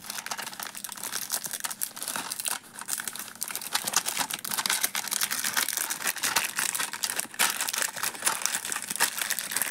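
Clear plastic packaging crinkling and rustling as it is handled by hand, a dense, continuous crackle.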